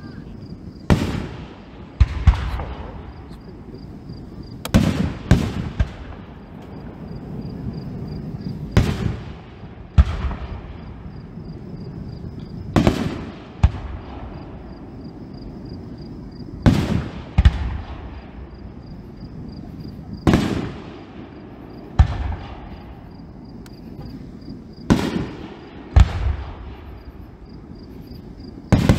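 Aerial fireworks shells bursting: a steady series of sharp bangs, often in close pairs, each trailing off in a rolling echo.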